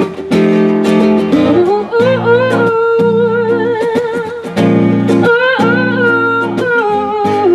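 Guitar strummed in chords, with a woman's voice singing long held notes over it from about two seconds in.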